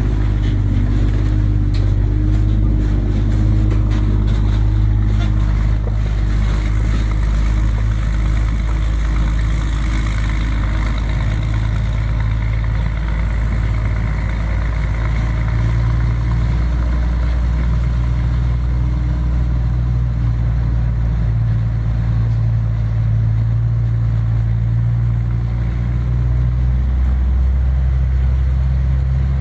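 Scania G420 truck's six-cylinder diesel engine pulling away heavily loaded, with a deep, steady rumble that steps in pitch a few times as it gathers way. Short clicks sound over it in the first few seconds.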